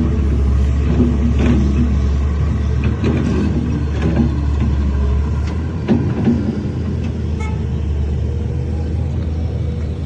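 Heavy diesel earthmoving machine running with a steady low rumble, with scattered metallic clanks, mostly in the first half.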